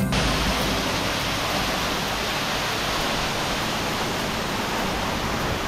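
Flowing water rushing steadily: an even, unbroken hiss.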